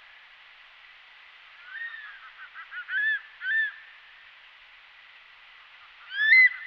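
Crested serpent eagle calling in whistled, rising-then-falling screams. There is one call about two seconds in, then a quick run of short notes and two more ringing calls, and the loudest call near the end, all over a faint steady hiss.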